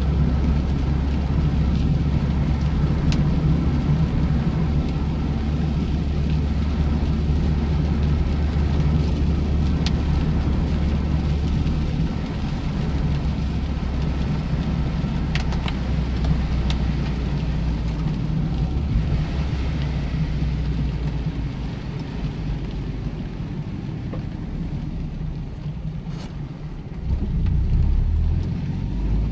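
Mazda MX-5 Miata 1.8's four-cylinder engine and its tyres on a wet road, heard from inside the cabin while driving: a steady low drone. It eases off for a few seconds, then picks up again as the car accelerates near the end.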